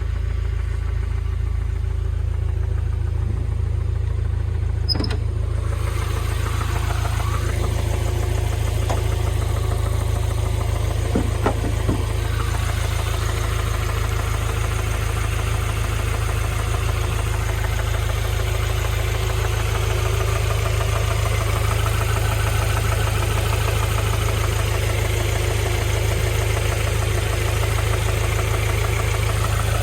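Honda H22A 2.2-litre DOHC VTEC four-cylinder engine idling steadily while making the abnormal noise the owner is recording to check, with a couple of faint clicks about five and eleven seconds in.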